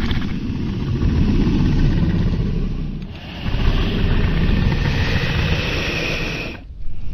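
Dragon roar sound effect: a long, low roar that fades about three seconds in, then a second, brighter roar that cuts off suddenly near the end.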